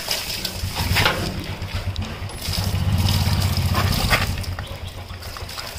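Stale diesel, left ten years in a Tata Safari's removed fuel tank, pouring out and splashing into a plastic bucket. A low rumble swells in the middle, and a few sharp knocks or splashes come through about one, two and four seconds in.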